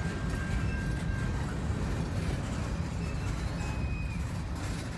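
Tail end of a freight train rolling past: a steady low rumble of boxcar wheels on the rail, easing slightly as the last car goes by, with a few faint high squeals.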